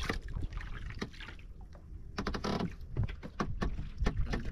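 Small waves lapping and slapping against the hull of an outrigger banca, with scattered light knocks and ticks and a low wind rumble on the microphone.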